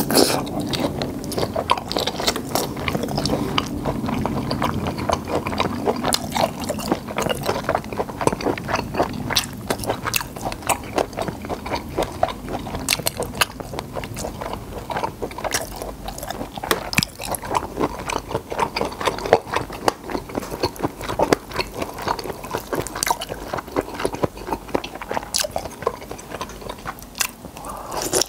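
A person chewing and biting cooked black tiger prawn meat, picked up close by a clip-on microphone: a dense, irregular run of wet smacks and small clicks of the mouth.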